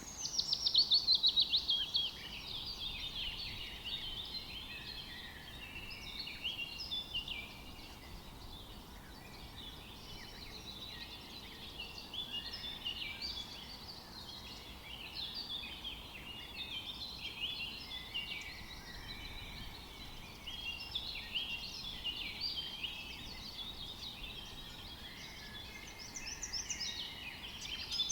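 Chorus of songbirds singing and calling in a forest, many overlapping chirps and short phrases, opening with a loud rapid trill that falls in pitch over the first two seconds and growing busier again near the end.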